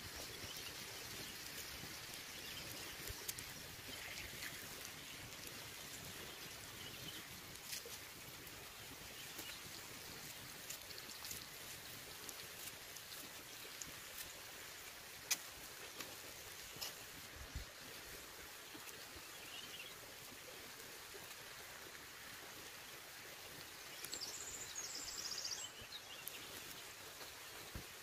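Wood fire crackling under a steady hiss, with scattered sharp pops, the loudest about halfway through. A brief high-pitched sound comes near the end.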